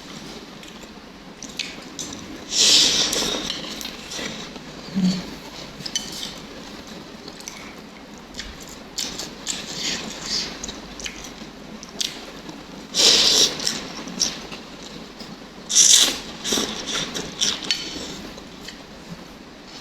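Someone eating noodle soup close to the microphone: utensils clink against the bowl, with eating noises and a few louder rushing bursts of about a second each, near the start and twice toward the end.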